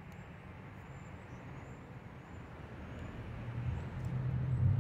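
Low, steady diesel engine rumble of an unseen approaching locomotive, growing louder from about three seconds in.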